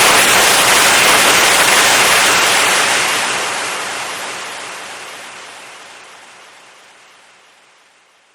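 Compressed air hissing out in a strong, steady blast, then fading away gradually over about five seconds until it is gone.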